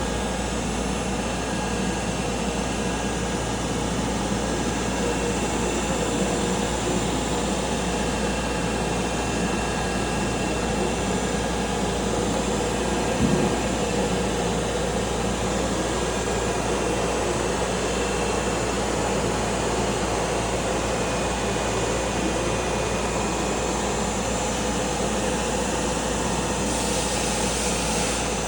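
CNC milling machine running steadily while cutting a thread on a truck axle: a constant machine hum with several steady tones, and a single brief knock about halfway through.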